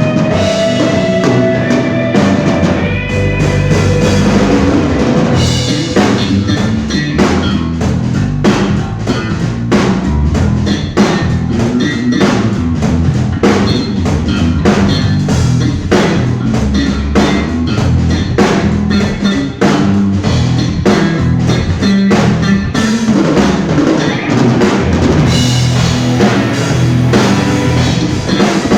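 Band playing live, with the drum kit (kick, snare and rimshots) up front in a steady rock beat.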